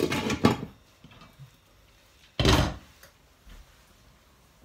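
A glass lid clattering as it is set down on a wok. About two and a half seconds in comes one heavy thud from a kitchen cupboard being opened.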